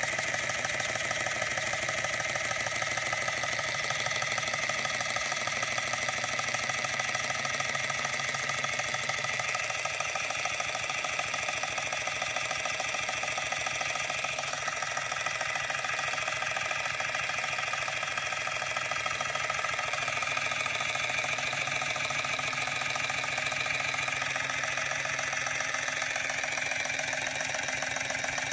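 Georges Carette model 2317 vertical toy steam engine, about 125 years old, running steadily under steam: a fast, even chuffing of exhaust with steam hiss.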